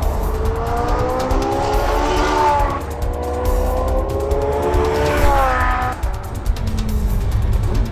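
Porsche 918 Spyder's V8 revving up under acceleration, its pitch climbing, dropping once at a gear change about three seconds in, then climbing steeply again before fading away, with background music.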